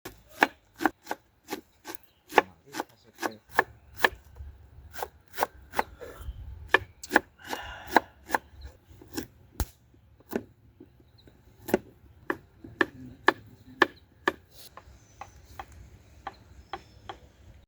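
Knife chopping food on a cutting board: sharp, evenly paced knocks at about two to three a second, with a brief pause a little past the middle.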